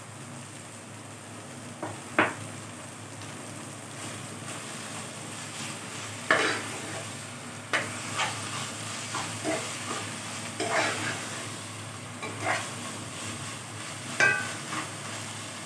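Metal spoon stirring thotakura (amaranth leaves) in a metal pot, clinking and scraping against the pot. There is one clink about two seconds in, then a clink every second or two from about six seconds on, over a steady low sizzle of the greens frying.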